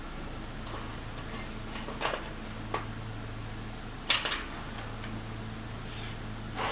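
Hands working among car engine-bay parts: a few short clicks and clatters, the loudest about four seconds in, over a steady low hum.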